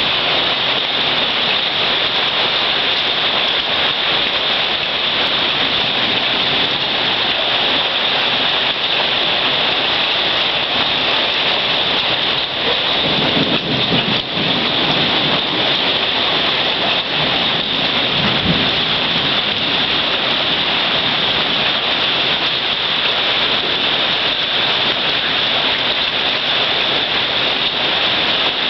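A hailstorm: hailstones and heavy rain pelting down in a dense, steady clatter, with two short low rumbles of thunder near the middle.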